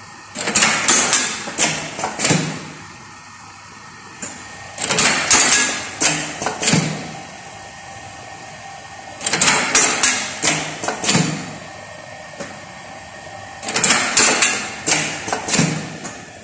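Automatic lead bullet casting machine working through its cycle: four bursts of sharp metallic clacks and knocks from its mould mechanism, each about two seconds long and roughly every four and a half seconds, over a steady machine hum.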